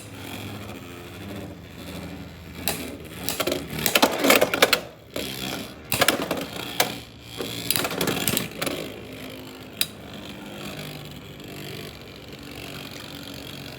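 Two Beyblade X spinning tops battling in a plastic stadium: a steady whirr of spinning with repeated sharp clicks and clashes as they collide. The hits are thickest about four to five seconds in.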